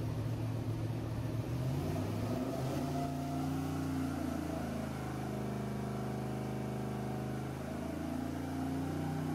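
Junkyard 4.8-litre LS V8 with a mild BTR Truck Norris cam and a Holley Hi-Ram intake, idling on an engine dyno. Its idle speed rises a little about two to three seconds in, then dips briefly and recovers near the end.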